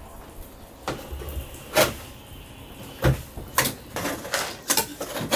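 Putty knife scraping and knocking at old caulk around an overhead hatch frame: a string of short, sharp scrapes, a few at first, then coming faster from about three seconds in.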